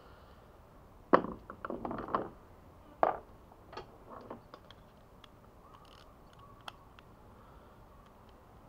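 Clicks and knocks of a 13 mm socket being fitted onto a socket wrench by hand. A quick cluster of sharp clicks comes about a second in, then a single loud knock about three seconds in, then a few lighter ticks.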